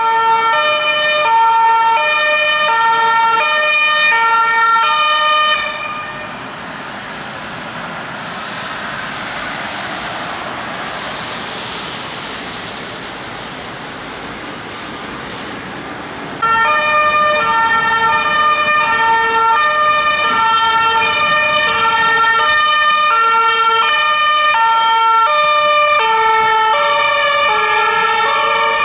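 Intensive care ambulance's two-tone siren, switching back and forth between two pitches. About five seconds in the siren gives way to a steady rushing noise. It cuts back in abruptly past the middle and keeps alternating.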